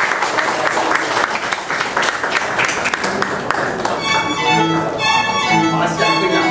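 Applause and crowd noise, then about four seconds in a string quartet of violins, viola and cello starts playing sustained notes.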